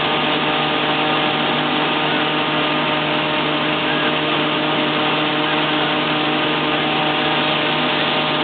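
Claas Crop Tiger 30 Terra Trac combine harvester running steadily at a constant pitch while unloading grain.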